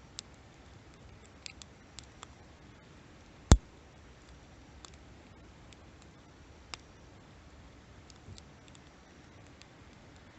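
Wood campfire crackling: scattered sharp pops and ticks over a low, even hiss, with one much louder snap about a third of the way in.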